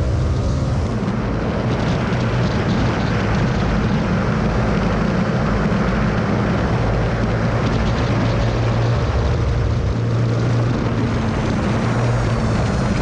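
Motorcycle engine running at a steady high track speed, heavily mixed with wind rush over the camera.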